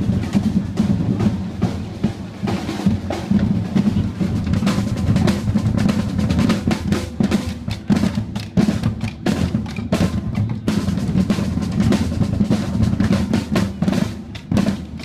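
A drum corps of several field drums played with sticks together, in a fast, continuous beat.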